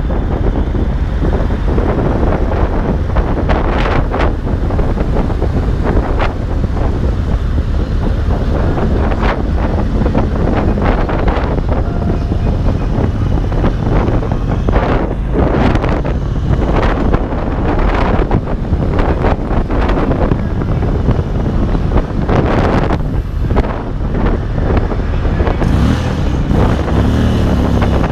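Heavy wind buffeting the camera microphone at freeway speed on a 2022 Indian Springfield Darkhorse cruiser, its engine running steadily under the rush of wind and road noise.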